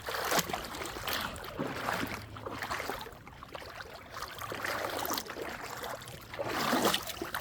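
Lake water sloshing and splashing close by, with a few small knocks and clicks.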